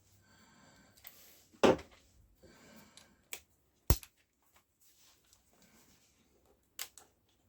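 A few sharp clicks and knocks of small hardware being handled, the loudest about two seconds in and another about four seconds in, with faint rustling between them.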